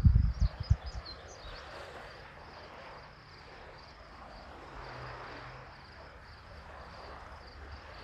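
Wind buffeting the microphone for about the first second, then steady open-air wind noise. Throughout there is a steady high insect trill, and a few short bird chirps come in the first couple of seconds.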